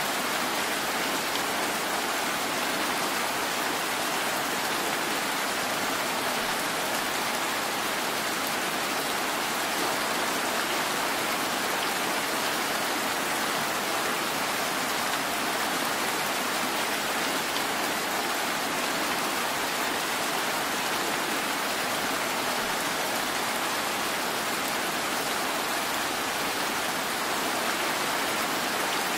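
Steady rain falling, an even hiss that holds level throughout with no single sound standing out above it.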